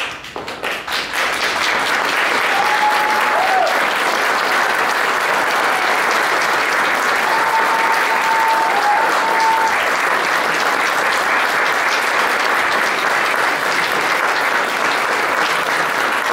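Theatre audience applauding at the end of a dance performance, building over the first second or so and then steady. Two long whistles ride over the clapping, one a few seconds in and a longer one around the middle.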